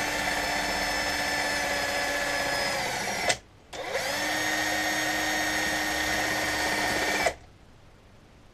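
Handheld power drill running a small pilot bit into a metal plate, the telescope's secondary-mirror holder, with a steady motor whine. It stops for about half a second a little over three seconds in, starts again, and cuts off about seven seconds in.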